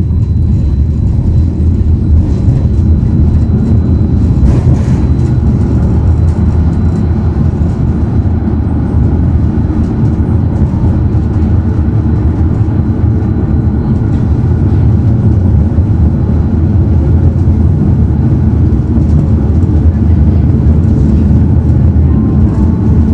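A city tram running along the track, heard from on board: a steady, loud low rumble of wheels and running gear.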